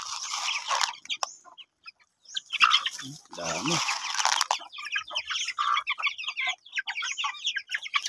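A flock of young native chickens peeping and clucking while they feed, a busy stream of short high chirps. There is a short lull about a second in, and the chirping grows denser toward the end.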